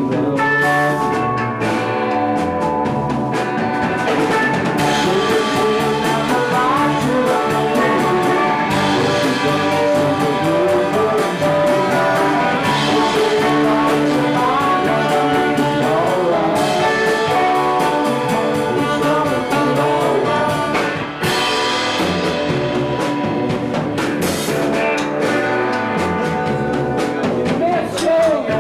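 Live band playing a song at full volume, with drums keeping a steady beat under bending melodic lines.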